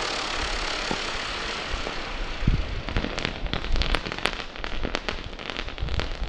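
Firework rocket hissing as it climbs, the hiss fading over the first couple of seconds, followed by a run of sharp, irregular crackling pops from high up.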